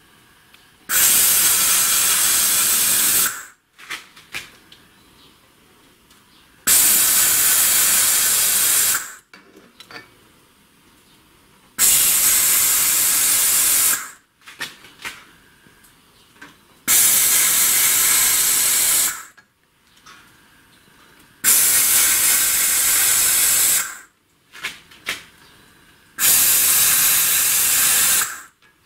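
Compressed air hissing in six even blasts of about two and a half seconds each, roughly every five seconds, with small clicks in the pauses between.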